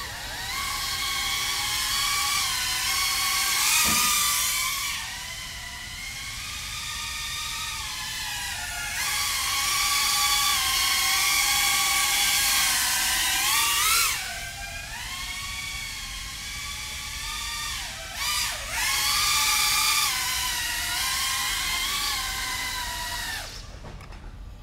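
BetaFPV Beta95X v3 quadcopter's brushless motors and propellers spinning up and whining in flight on its test flight. The pitch rises and falls with the throttle, dips sharply about three times, and stops near the end as it lands.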